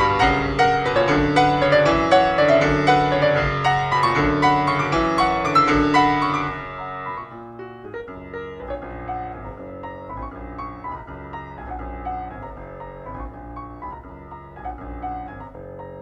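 Background piano music: a lively, full run of notes that drops to a softer, quieter passage about six and a half seconds in.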